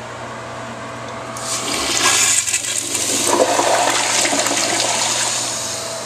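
Crane Hymont toilet flushing: a loud rush of water starts about a second in, swells, then tapers off near the end.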